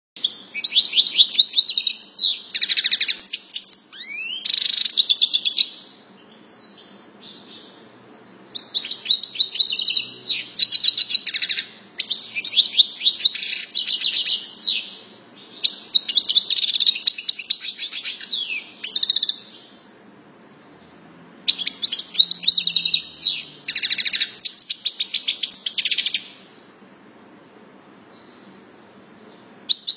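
European goldfinch of the large 'major' race singing: rapid, high, twittering song in four bursts of a few seconds each, with short pauses between them.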